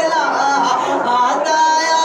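A man sings a naat (Islamic devotional song) through a microphone, drawing out long held notes that waver and glide in pitch.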